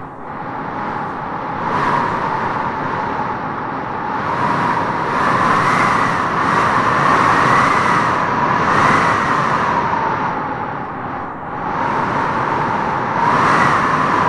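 Strong wind blowing in gusts, swelling and easing every few seconds, with a wavering whistle riding on the loudest gusts.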